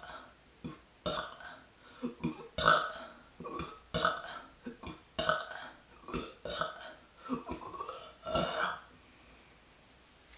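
A woman burping: a quick run of about ten short belches, one every second or so, then they stop.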